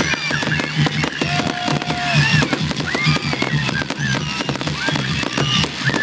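Aerial fireworks barrage: dense, rapid crackles and bangs, one on top of another, with high gliding whistles over them.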